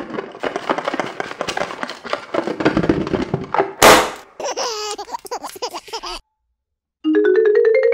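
Added cartoon sound effects: a busy stretch of rapid pulsing sound, a sudden noisy whoosh about four seconds in, a short warbling effect, then a second of silence and a quick run of rising tones near the end.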